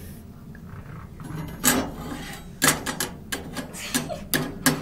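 A run of sharp knocks and clatters from hard objects, about eight of them at irregular spacing, starting about a second and a half in over a steady low rumble.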